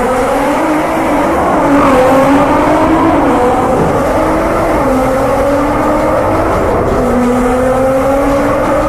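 GT-R sports car engine accelerating hard, its pitch climbing and then dropping back at each gear change, about three times.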